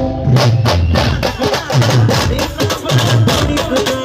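A live band playing the song's instrumental section: quick, steady drum and percussion strikes over a repeating bass figure.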